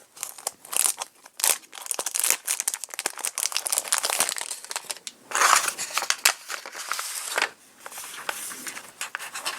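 Paper and plastic packaging crinkling and rustling as sheets of stickers are handled and pulled out, with many small crackles and a longer, louder rustle about halfway through.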